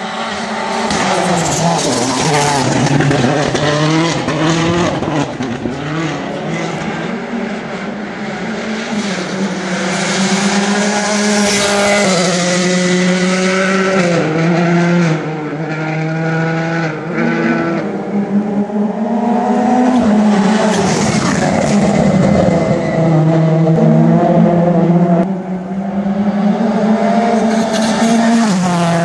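Rally car engines driven hard, revving up and down and stepping through gear changes as cars come past one after another, with bursts of tyre and gravel noise.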